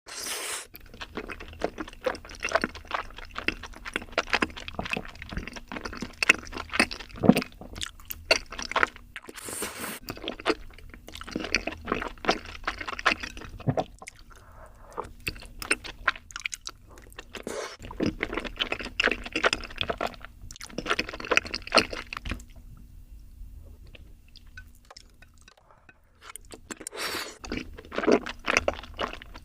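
Close-miked eating: crunchy and wet chewing with irregular crackles and smacks, pausing briefly a few times and going quieter for a few seconds about three quarters of the way through.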